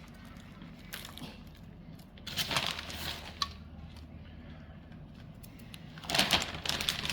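Two short bursts of rustling and crinkling handling noise, a few seconds apart, over a faint steady low hum.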